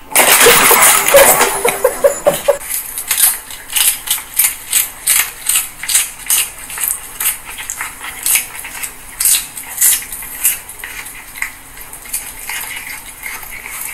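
A cat crunching a crisp lettuce leaf, with sharp wet crunches about twice a second. Before that, a loud burst of rough noise fills the first two seconds or so.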